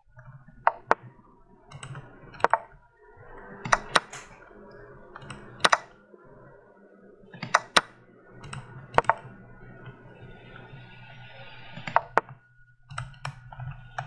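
Sharp clicks of rapid online blitz chess moves, from computer mouse clicks and the chess site's move sounds. They come every second or two, often in quick pairs as a move and its reply land almost together, over a low steady hum.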